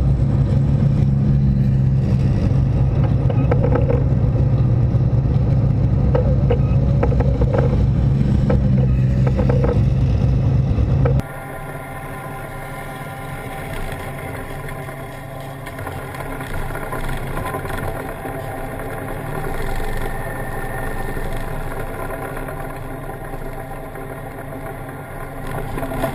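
Tank's diesel engine running close under the camera, a loud, heavy low drone. About eleven seconds in it cuts off abruptly to a quieter, steady engine hum.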